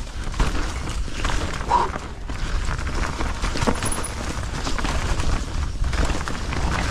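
Mountain bike riding down a dirt trail: tyres rolling over the ground with frequent clicks and knocks of the bike rattling, over a low rumble of wind on the microphone.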